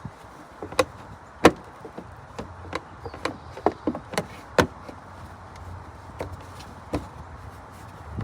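A series of irregular knocks and taps, about a dozen sharp hits, the loudest about one and a half seconds in.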